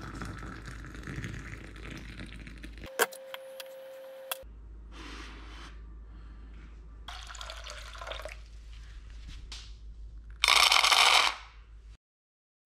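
Water pouring from a stainless steel electric kettle into a glass mug, then a sharp click followed by a short steady tone. Softer scattered noises come next, and near the end there is a loud noisy burst lasting under a second.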